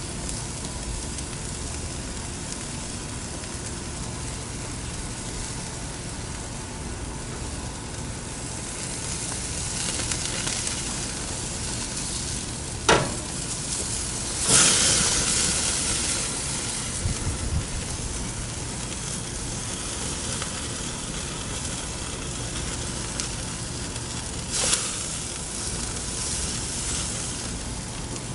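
Food sizzling steadily as it browns over high heat. Halfway through there is a knock, then a louder burst of sizzling that fades over a couple of seconds, and a smaller burst comes near the end.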